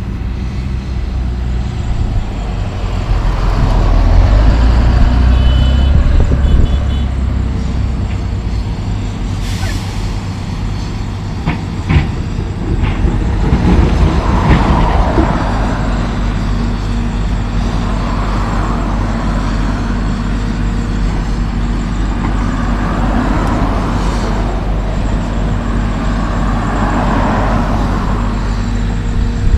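Diesel engines of a dump truck and an excavator running. The truck's engine is loudest in the first seconds as it pulls in to the excavator, with a short hiss of air brakes about ten seconds in and a sharp knock about two seconds later. After that the excavator's engine swells and eases every few seconds as it works.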